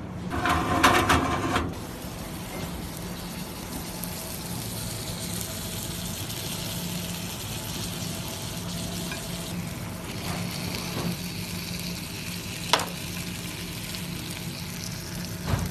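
Food sizzling on a hot cast-iron sizzler platter, a steady hiss over a low hum. A loud rasping rustle lasts about a second at the start, and a single sharp click comes near the end.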